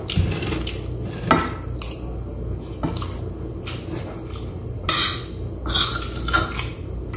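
Metal spoon and fork clinking and scraping against a plate, in several separate knocks and a few longer scrapes, over a steady low hum.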